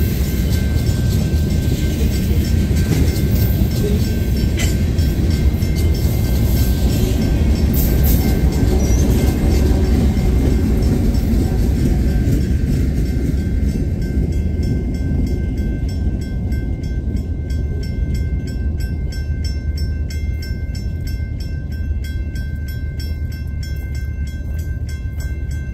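Loaded freight train of tank cars rolling slowly past with a low rumble of wheels on rail. A trailing locomotive at the rear passes about halfway through, and the rumble then fades as the train clears. A grade-crossing bell dings steadily throughout, standing out once the train has gone by.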